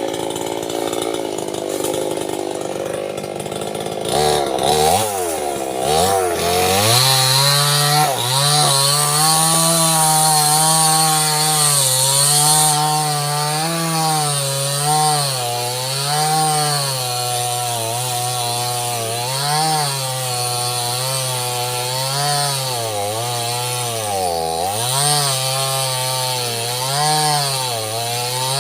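Small two-stroke chainsaw, blipped a few times and then held at full throttle while cutting into sengon (albizia) wood. Its pitch sags and recovers every second or so as the chain bites, and it falls back just at the end.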